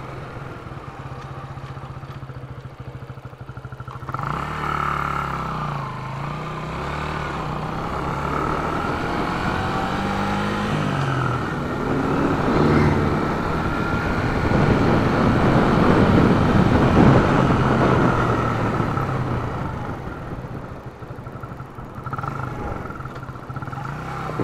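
Yamaha YB125SP's 125 cc single-cylinder four-stroke engine running on the move. The engine note picks up about four seconds in and rises and steps through the gears. A louder rushing noise builds and peaks in the middle before easing off near the end.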